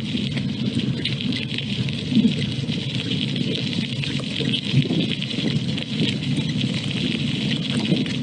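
Steady rushing noise of a bicycle being ridden: wind on the microphone and the tyres on a wet path, with small knocks, two of them a little louder about two and five seconds in.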